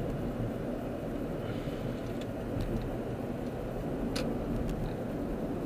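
Car driving, heard from inside the cabin: steady engine and tyre rumble with road hiss, and one short sharp click about four seconds in.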